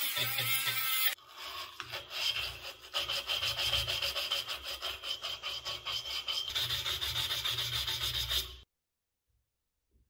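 A twisted-wire tube brush is scrubbed rapidly back and forth inside the steel tubes of an antique spirit-stove burner, making quick, rhythmic rasping strokes that stop abruptly near the end. It is preceded by about a second of a brighter, louder scratching on metal.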